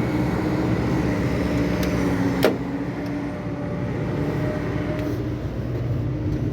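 Excavator's diesel engine running steadily, with a single sharp knock about two and a half seconds in.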